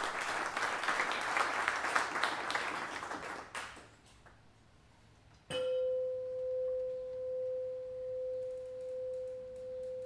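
Applause fades out over the first three and a half seconds. After a short hush, a singing bowl is struck once, about five and a half seconds in, and rings on one pure tone whose level pulses slowly as it sustains.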